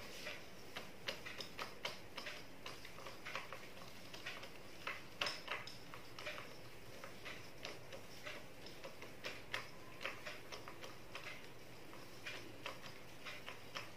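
Marker pen writing on a whiteboard: faint, irregular short strokes and taps as letters are drawn, a few each second.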